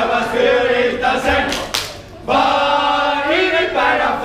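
A group of voices singing together, loud, with a single sharp crack about halfway through and a short break before the singing starts again.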